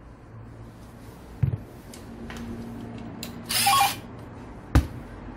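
Cordless impact driver running in a short half-second burst on a screw in an angle grinder's motor housing. Two sharp knocks of metal parts handled on the workbench come before and after it.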